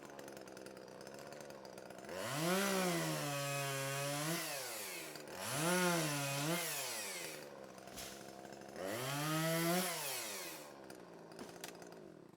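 Chainsaw idling, then revved three times while cutting small trees. Each time the engine pitch climbs, sags and holds lower under load in the wood, then rises again as the chain comes free and drops back to idle.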